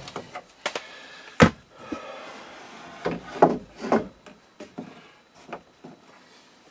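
Wooden knocks and clunks as lumber is handled during a bunk bed frame build. One sharp knock comes about a second and a half in, a cluster of heavier thuds follows around three to four seconds in, and lighter taps come after.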